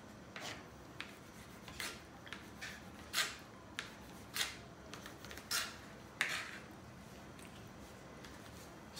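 Kitchen knife slicing through raw chicken breast onto a plastic cutting board: short scraping strokes, about one to two a second, that die down over the last couple of seconds.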